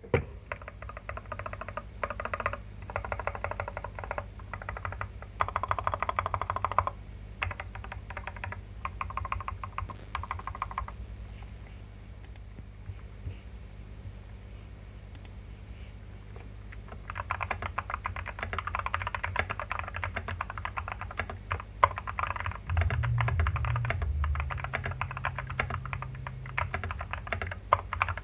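Fast typing on a Vortex VX5Pro mechanical keyboard with JWICK Red linear switches and PBT keycaps, modded with foam, three layers of tape and PE foam: dense runs of key clicks, broken by a pause of several seconds about a third of the way in before typing resumes.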